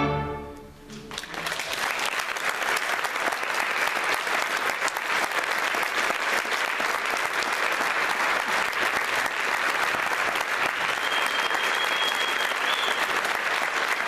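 A string orchestra's final chord fades away, and audience applause starts about a second in and carries on steadily.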